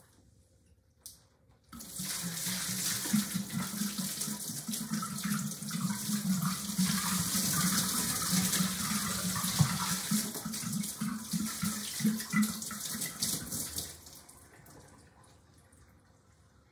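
Water poured from a vase over a person's hands, splashing into a kitchen sink. It starts about two seconds in, runs steadily, then tapers off a couple of seconds before the end.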